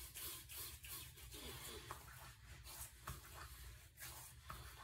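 Faint rubbing of hands spreading post-shave balm over the face, beard and neck, a soft irregular scratching of palms on skin and whiskers.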